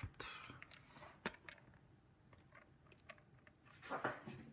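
Handling noises as a box and a pinning tray are set down and shifted into place: a short scrape just after the start, a sharp click about a second in, and another scraping shuffle near the end.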